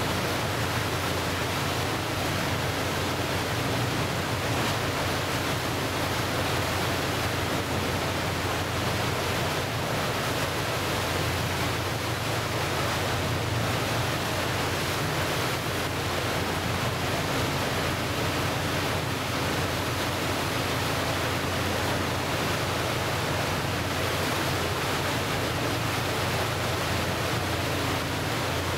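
Passenger boat M/S Ramsö under way: a steady rushing wash of water along the hull, with a low, even engine drone beneath it.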